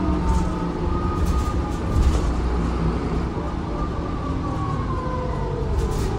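Transbus Trident double-decker bus heard from inside the upper deck while under way: a steady low rumble of engine and road, with a drivetrain whine that slowly falls in pitch.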